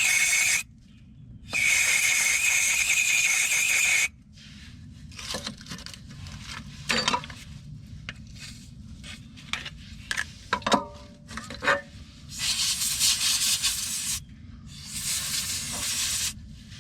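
Four long hissing bursts, the first two with a faint whistle in them, as air or spray is blasted into the freshly tapped bolt hole. Between the second and third bursts come scattered small metallic clicks and taps of hand tools.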